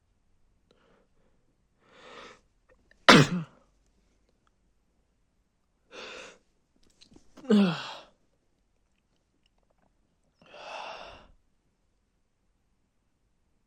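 A man sneezing twice, loud and sharp, about four and a half seconds apart, each sneeze preceded by a drawn breath, then a breathy sigh near the end.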